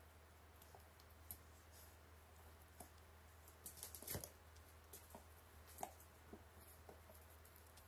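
Faint scattered clicks and squishes of a dog chewing a rubber Kong Widget toy, with a few louder clicks a little past the middle, over a steady low hum.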